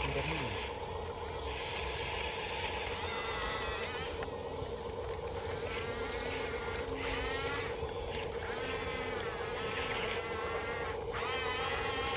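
RC bulldozer's electric drive motors and gearing running with a steady whine. From about three seconds in, high wavering squeals come and go several times over it; this is the strange sound the machine makes while working.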